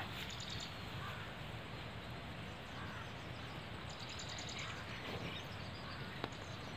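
Low, steady outdoor background noise with a few faint bird chirps here and there.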